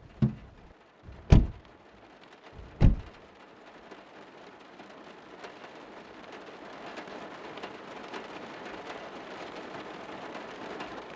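Four heavy thumps in the first three seconds, then a steady hiss of rain that slowly grows louder.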